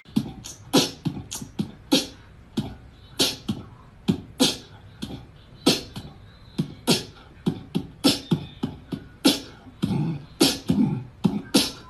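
Beatbox-style mouth percussion: sharp clicks, hisses and low thumps in an uneven rhythm, about two or three hits a second.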